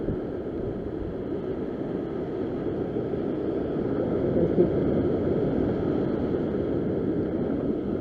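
Ocean surf breaking and washing over sea rocks, with wind on the microphone: a steady rush of noise that swells a little about halfway through.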